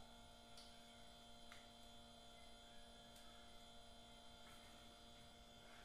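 Near silence: a faint steady electrical hum, with a few faint light clicks.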